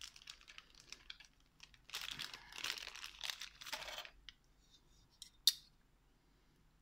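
Clear plastic bags rustling and crinkling as hands rummage among metal rings, then a few small ticks and one sharp click about five and a half seconds in.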